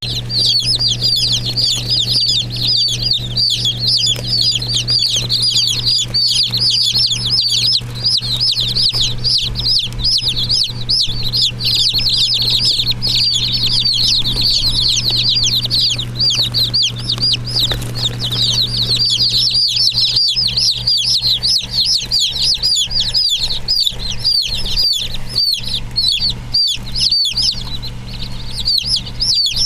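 A crowd of Black Broiler baby chicks peeping without pause, many short high calls overlapping, over a steady low hum.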